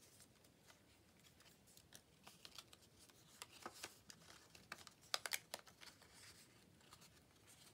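Faint, scattered clicks and scratches of paper being cut and worked loose by hand, with a quick cluster of sharper ticks about five seconds in.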